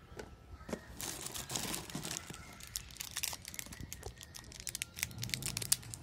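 Plastic candy wrappers crinkling and rustling as a hand rummages in a jar of individually wrapped candies and picks one out. A burst of rustling comes about a second in, then a run of sharp crackles.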